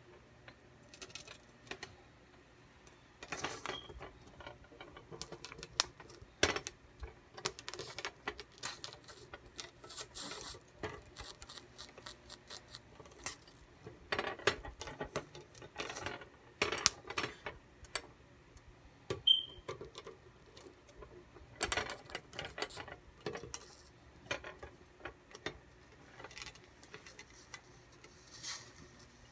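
Ear of sweet corn crackling and popping as its kernels char directly on a hot electric coil burner, with irregular sharp snaps, some louder than others.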